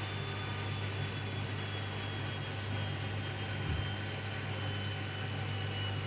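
Hoover washing machine in an intermediate spin on a cotton wash, with a steady low hum and a high motor whine that slowly falls in pitch as the drum slows. There is one brief low knock a little past halfway.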